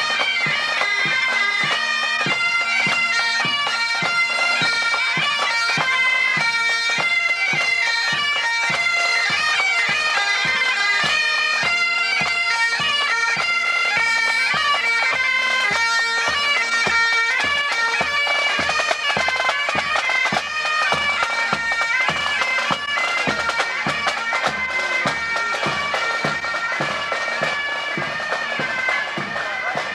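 Pipe band playing a march: Highland bagpipes, their steady drones under the melody, with snare and bass drums keeping a regular beat. It grows a little fainter near the end.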